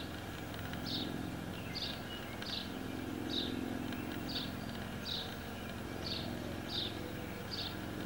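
A woodpecker giving short, high call notes, about one a second, over a steady low background rumble.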